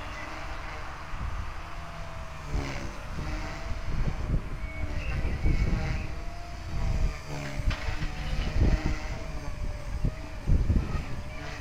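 Align T-Rex 250 electric flybarless RC helicopter flying, its motor and rotor whine wavering in pitch as it manoeuvres. Gusts of wind buffet the microphone with a rumble that comes and goes.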